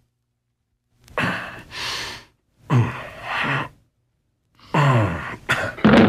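A man grunting and exhaling hard with strain, two long effortful breaths and then a falling groan near the end, as he heaves a very heavy Yule log into the grate on an old played-back recording.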